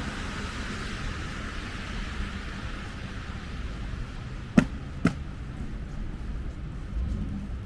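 City street ambience with a steady low traffic rumble and a hiss, likely from a passing vehicle, that fades away over the first few seconds. About halfway through come two sharp clicks or knocks, half a second apart.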